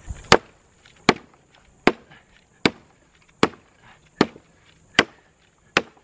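Zippo axe-saw hatchet chopping a thin stick into firewood: eight sharp, evenly spaced strikes, about one every 0.8 seconds.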